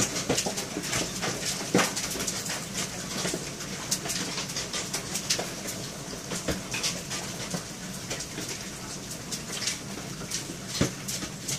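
Hail and rain striking window glass: a dense, irregular patter of sharp ticks, with a louder knock about two seconds in and another near the end.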